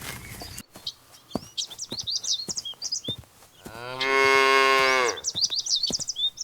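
A cow mooing once, a steady call of about a second and a half that drops in pitch as it ends. Small birds chirp quickly before and after it.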